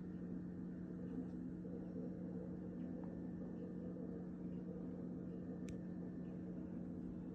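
A steady low hum with several held tones, with one faint click about six seconds in.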